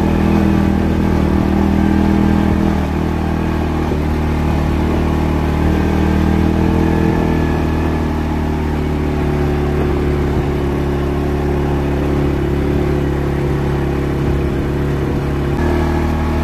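CFMoto CForce 500 ATV's single-cylinder engine running steadily under throttle as the machine climbs and cruises along a rough dirt trail. It is a little louder for the first few seconds on the rise, then eases slightly.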